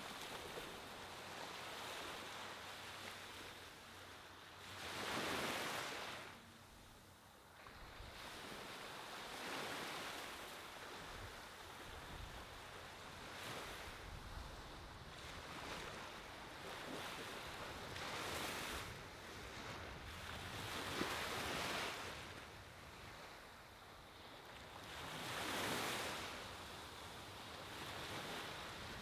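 Small ocean waves breaking and washing up on a sandy beach: a steady hiss of surf that swells with each wave every few seconds, the loudest about five seconds in and again near the end.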